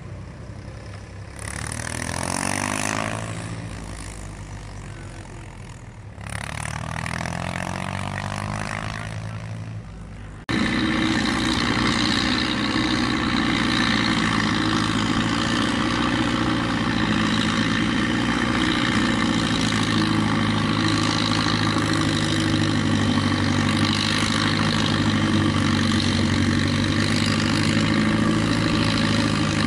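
Tractors hauling loaded silage trailers go by on a road, one after the other, each engine swelling and fading as it passes. About a third of the way in, the sound switches abruptly to the loud, steady running of a Hesston 7420 tractor powering a Kemper one-row maize forage chopper, with the engine drone of the tractors working alongside it.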